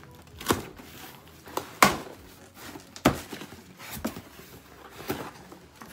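Items and packing material being handled while a cardboard shipping box is unpacked: about six sharp knocks and rustles, irregularly spaced.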